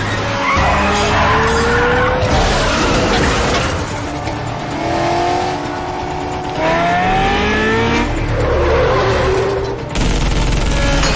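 Film car-chase sound mix: car engines revving and tyres squealing and skidding as cars slide, over a heavy low rumble.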